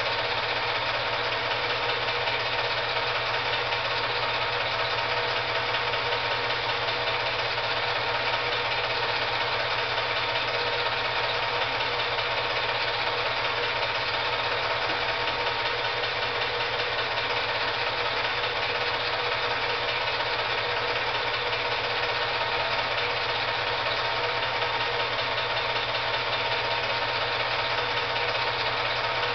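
8mm film projector running during the film's transfer: a steady mechanical whir with a constant hum that does not change.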